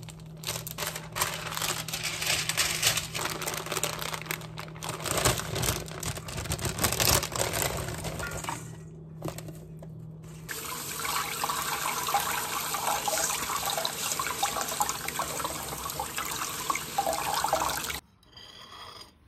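Kitchen tap water running into a sink, with hands handling kale in a metal colander as it is rinsed. The running water stops and starts with short breaks between clips.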